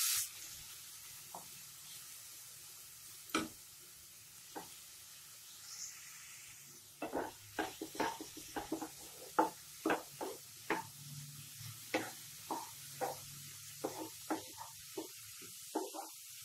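Grated carrot frying in hot ghee with a faint steady sizzle, while a spatula stirs it and scrapes and knocks against the pan. There are a few strokes at first, then about two a second from about seven seconds in.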